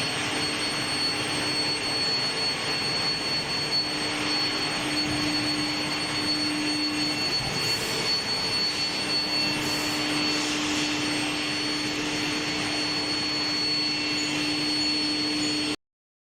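Steel-bar induction hardening furnace line running: a steady industrial noise with a constant high whine and a lower hum, which drops out for a couple of seconds partway through. The whole sound cuts off abruptly near the end.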